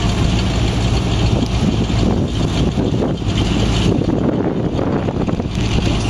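Self-propelled hay baler's engine running steadily as it drives off across the field.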